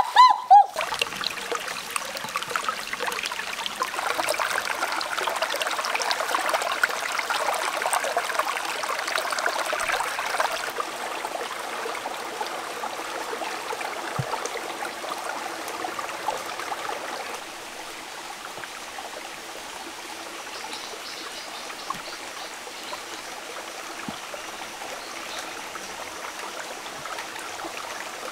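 Small rocky forest stream trickling and flowing over stones, a steady water sound that becomes quieter about two-thirds of the way through. At the very start there is a brief loud cry with a splash.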